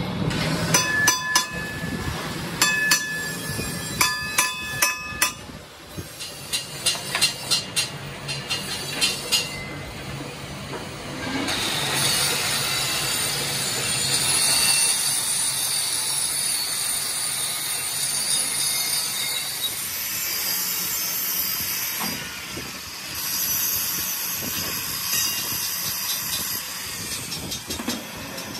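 Sharp metallic knocks, the steel wheel rim ringing after each, over the first nine seconds or so. Then, from about twelve seconds in, an angle grinder grinds the steel rim as it turns on a lathe: a steady abrasive hiss on metal.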